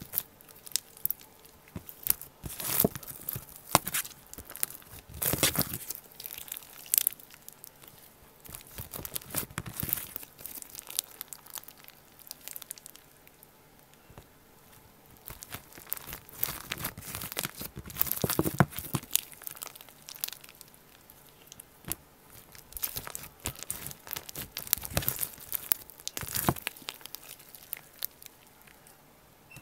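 Slime being squished and stretched by hand close to the microphone: irregular sticky crackles and pops that come in clusters, with quieter pauses in the middle and near the end.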